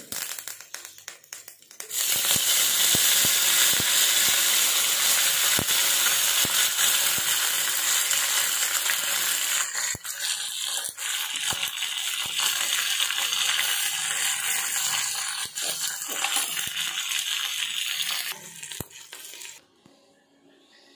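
Curry leaves and dal spluttering and sizzling in hot oil in a small tempering pan, a loud crackling sizzle that starts suddenly about two seconds in and dies away near the end.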